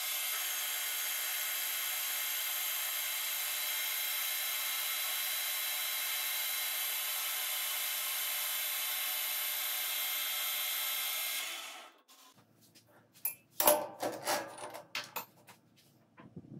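Metal lathe turning a rusty steel tube with a carbide insert: a steady cutting hiss with several high whining tones, which fades out about twelve seconds in. A few sharp knocks and clicks follow as the tube is handled at the chuck.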